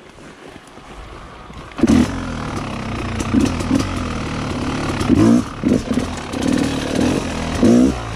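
Yamaha YZ250X 250 cc two-stroke engine lugging at low revs, with short bursts of throttle about two, five and eight seconds in. It is faint at first, then comes in loud about two seconds in.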